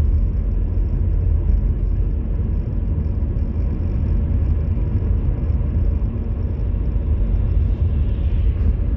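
Steady low rumble of a car's road and engine noise, heard from inside the moving car's cabin, with a brief swell of tyre hiss near the end as an oncoming car passes.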